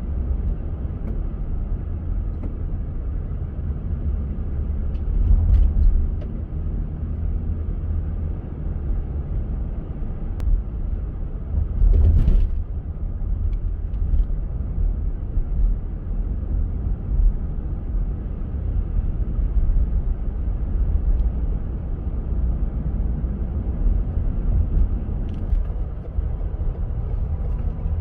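Steady low rumble of a car driving on a snowy road, tyre and engine noise, with brief louder surges about five and twelve seconds in, the second the louder.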